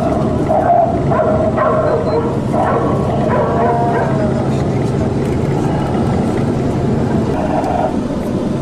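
Steady rumble of a moving vehicle heard from inside its cabin, with short bits of voices over it in the first half.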